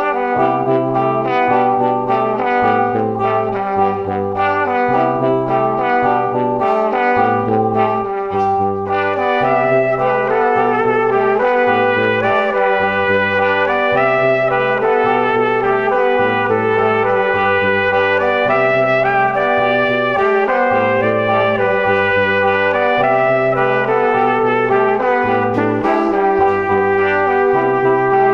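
Instrumental background music with a steady line of low bass notes.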